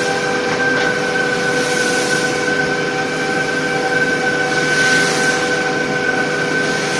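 Steady drone of running factory machinery: several unchanging tones over a hiss, holding an even level throughout.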